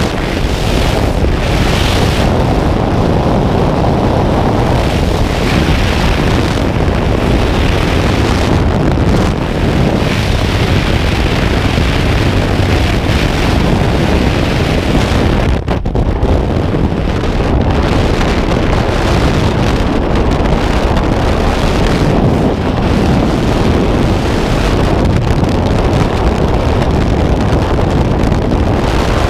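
Loud, steady wind noise battering a helmet camera's microphone, first in the slipstream at a small jump plane's open door and then in skydiving freefall. The noise drops briefly about halfway through.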